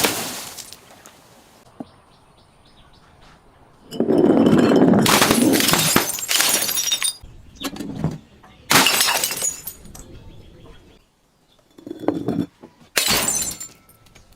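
Glass bottles breaking and being crushed: a long crunching, shattering spell of about three seconds starting about four seconds in, then several shorter breaks and crunches.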